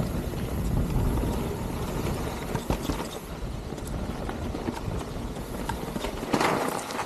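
Mountain bike descending a rough trail at speed: tyres rumbling over rock and roots, with the chain and frame rattling and many sharp knocks from impacts. There is a brief louder scrape near the end.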